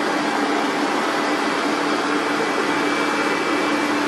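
Single-drum road roller's diesel engine running steadily, with a constant hum over an even mechanical noise.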